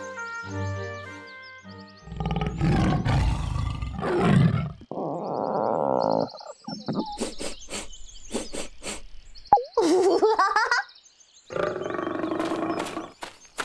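A short musical jingle, then a tiger roar sound effect heard several times over.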